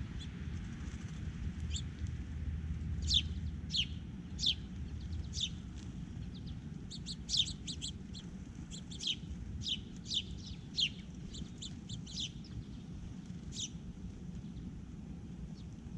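Songbirds giving short, high calls that slide downward, repeated at irregular intervals and thickest in the middle, over a steady low rumble.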